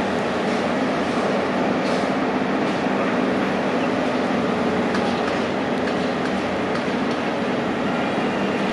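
Heavy construction machinery running steadily, a continuous diesel engine drone with a few faint metallic clicks over it.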